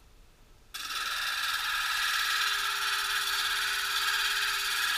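A gemstone pressed onto the spinning diamond disc of an Ameritool 8-inch lapidary grinder, grinding with a harsh, steady hiss that starts suddenly about a second in. A faint steady hum runs under it.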